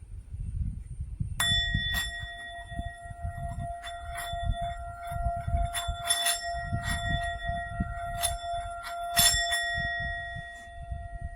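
Small hammered Tibetan singing bowl, struck with its wooden mallet about a second and a half in, then ringing steadily with several overtones. The mallet clicks against the rim a few more times while the ring goes on, over a low rumble of handling noise.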